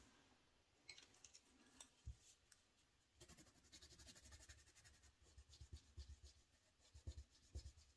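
Colored pencil scribbling on paper, coloring in: faint, rapid back-and-forth strokes starting about three seconds in, after a few light taps and rustles.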